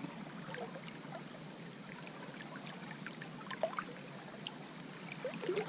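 Steady rush of a shallow river's current, with scattered small ticks and trickles of water.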